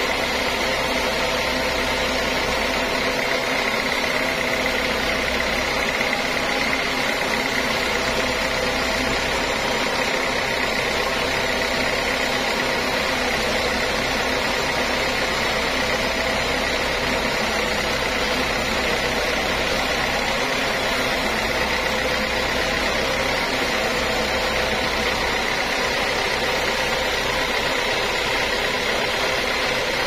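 Large sawmill band saw running steadily, with a steady high tone over the machine noise.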